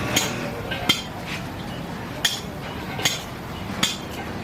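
Metal parts and tools clinking and tapping together as a hydraulic pump is worked on by hand: about five sharp, irregular clinks over a low workshop background.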